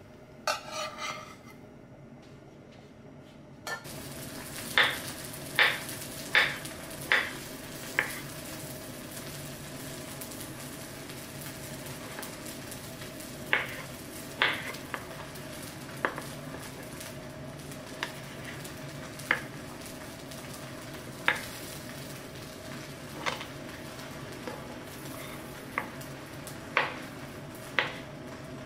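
Kitchen knife slicing kiwi fruit on a wooden cutting board: sharp knocks of the blade meeting the board, first five in an even rhythm a little under a second apart, then more scattered ones, over a steady hiss. There is a brief scrape of utensils in a frying pan right at the start.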